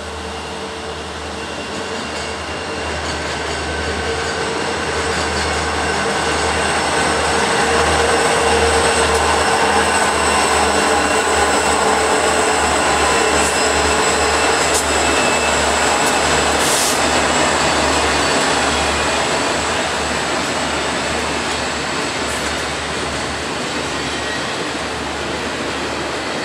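Norfolk Southern double-stack intermodal freight train passing: the lead diesel locomotives run by, growing louder to a peak about a third of the way in, then the container well cars roll by on the rails.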